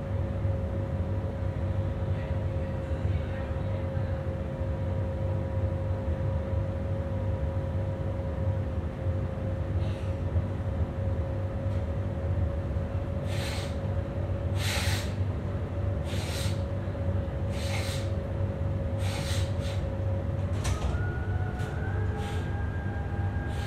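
Electric commuter train running: a steady low rumble with a constant whine. From the middle onward come short sharp noises about every second and a half. Near the end a higher whine starts up and rises in pitch.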